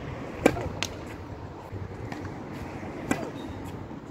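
Tennis serve: a sharp, loud racket-on-ball strike about half a second in, then fainter ball hits and bounces, one clearer about three seconds in.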